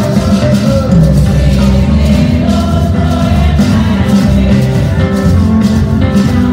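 Live gospel worship music: a small group of singers singing together into microphones over amplified backing with a strong bass and a steady beat, heard through a PA.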